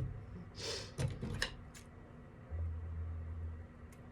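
Craft ribbon rustling as it is handled, with a few light clicks and taps, then a low steady hum for about a second past the middle.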